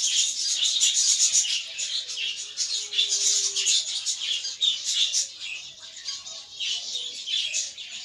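A flock of budgerigars chattering: a dense, unbroken stream of quick high chirps and warbles.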